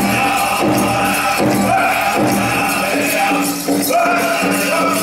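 Powwow drum group singing a contest song over a steady beat on a large powwow drum, with the bells on the dancers' regalia jingling in time.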